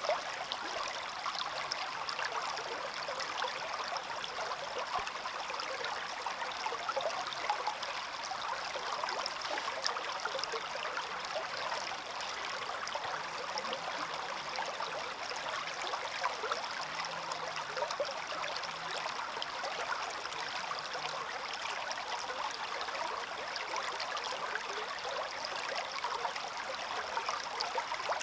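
Stream water running steadily: an even rush of flowing water with many small splashes through it.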